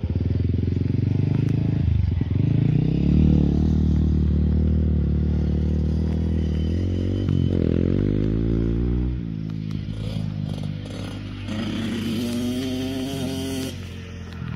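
Dirt bike engine riding the track, its pitch dipping and climbing with the throttle and gear changes. It is loud for the first nine seconds, then drops to a fainter drone that rises again in pitch.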